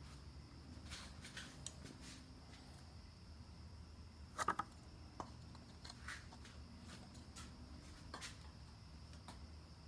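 Scattered light clicks and taps of parts being handled during a car intake install, with a quick run of three louder clicks about four and a half seconds in, over a faint steady hum.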